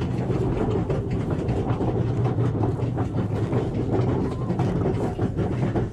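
Roller coaster train running along its track, a steady rattling rumble with a constant clatter of wheel clicks.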